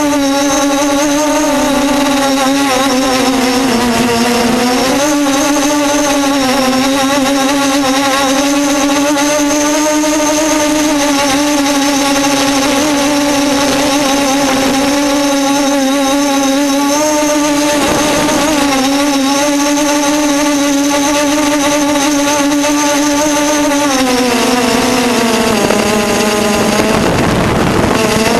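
Electric motors and propellers of an RC aircraft in flight, a steady whine with many overtones whose pitch wavers with throttle. It dips about four seconds in and slides lower near the end. Heard from a camera on the aircraft, with a rush of wind noise.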